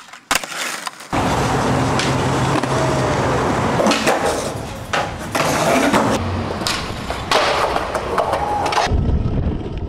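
Skateboard wheels rolling on concrete, broken by several sharp clacks of the board popping and landing. The sound changes abruptly a few times where one clip cuts to the next.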